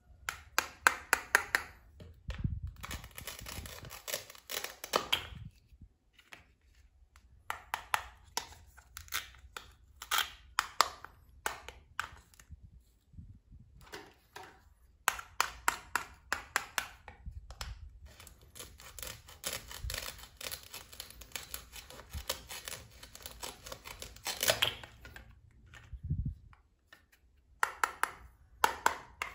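A plastic toy knife cuts a toy watermelon apart, the halves tearing free with the scratchy rasp of hook-and-loop fastener. This comes in several rasping stretches of a second or more, among sharp clicks and taps of hard plastic toy pieces being handled.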